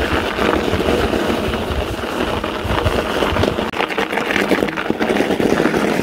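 Mountain bike tyres crunching over packed snow while riding, a continuous dense crackle with a brief dip a little past halfway.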